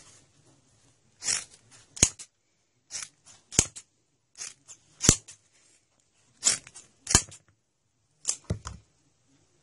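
Scissors, freshly sharpened, cutting through a sheet of black leather-like material in five separate snips. Each snip is a short rasp through the material followed by a sharp click as the blades close.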